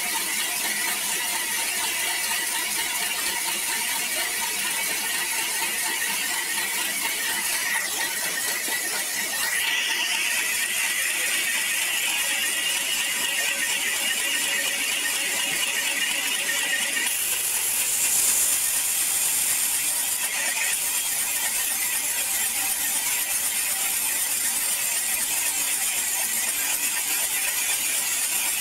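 Sawmill band saw cutting through a log: a steady high-pitched whine with a few held tones. The tone shifts about eight to ten seconds in and again around eighteen seconds in, as the blade's load in the cut changes.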